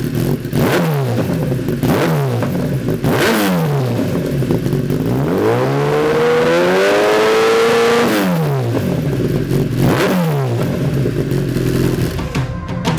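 A 2013 Kawasaki ZX1000's inline-four engine running through a Lextek XP8C carbon slip-on silencer. It idles and is revved in three quick blips. About midway it gives one longer rev, held high for a couple of seconds, then drops back to idle.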